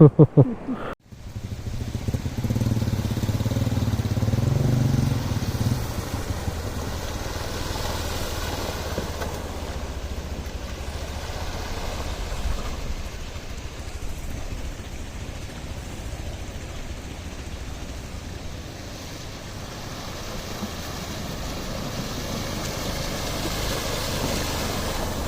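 Motorcycle engine running at low revs, with a stronger low hum for the first few seconds. It then settles into a steady hum under an even hiss that swells a little near the end.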